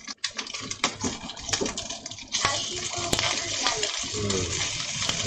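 Meat sizzling in a small cast-iron skillet, with chopsticks clicking against the pan as the pieces are turned. The sizzle gets louder about two and a half seconds in.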